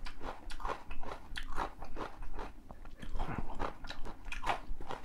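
A man chewing a mouthful of food in quick, short bites, about three to four a second.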